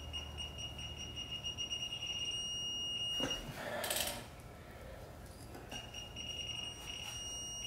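Digital torque wrench giving a steady high-pitched alert tone as it is pulled up on an LS engine's crank pulley bolt, torquing to 240 foot-pounds. The tone breaks off about three seconds in, there is a short burst of scuffing noise, and the tone returns about two seconds later.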